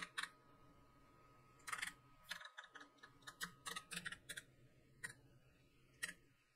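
Typing on a computer keyboard: faint key clicks in short, irregular runs as a word is typed in.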